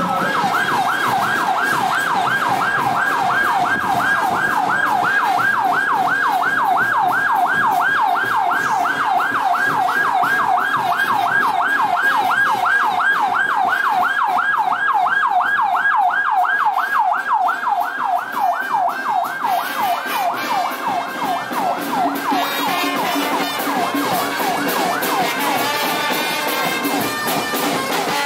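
A siren warbling rapidly up and down, about three times a second, which fades out about two-thirds of the way through as band music takes over.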